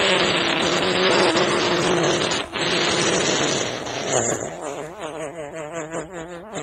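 A man wailing hysterically, half laughing and half sobbing: a long hoarse, strained cry, then quavering, pulsing wails.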